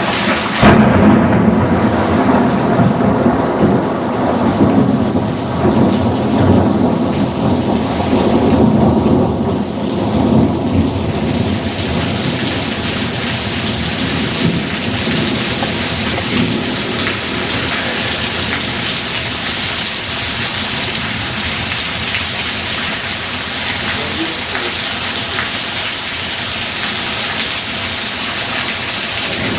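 A sharp thunderclap about half a second in, rolling into a long low rumble of thunder that fades over roughly ten seconds, over steady heavy downpour rain.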